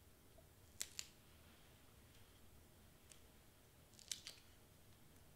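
Faint, crisp paper clicks from peeling the backing off small double-sided foam tape squares on cardstock: two quick pairs, about a second in and about four seconds in, with near silence between.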